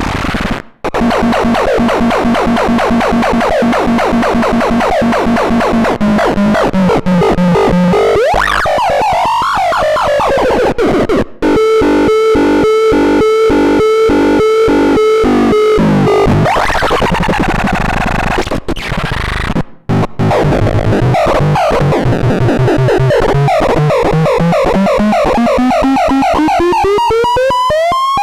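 Dead Bug electronic noise synthesizer making buzzy, harsh pitched tones. It starts on a held drone, glides in pitch, then stutters in rapid on-off pulses for several seconds. It cuts out briefly a few times and ends on a long rising sweep.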